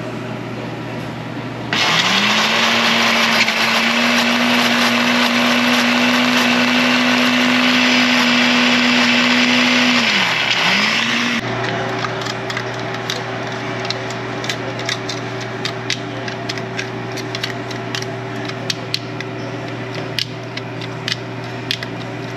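Countertop blender switched on: the motor spins up and runs loud and steady for about nine seconds, blending mayonnaise, ketchup and pepper sauce into a creamy sauce. It briefly drops in speed and picks up again before it cuts off. Then a utensil scrapes and taps inside the plastic blender jar as the sauce is scooped out.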